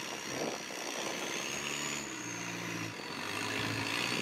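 Rock crawler buggy engine running under throttle as it climbs a boulder, held at a steady raised note for about a second and a half in the middle before easing off. A thin high whine that rises and falls runs through it.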